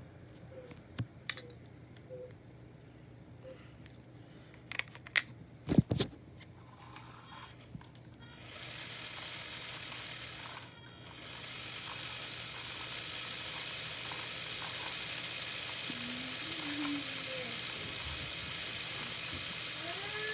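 LEGO plastic pieces clicking as they are handled and pressed together, a few sharp clicks. Then a LEGO electric motor switches on and spins the jet engine model's shaft with a steady high whir; it cuts out for a moment and restarts.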